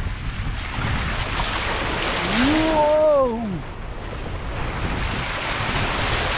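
Opel Astra G 1.6 16V driving through deep puddles on a flooded dirt track: water washing and splashing against the car, with wind on the microphone. A man shouts "whoa" about two and a half seconds in.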